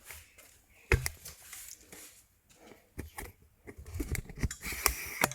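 Scattered clicks and knocks of tools and parts being handled, with one sharp knock about a second in and a cluster of light clatter near the end.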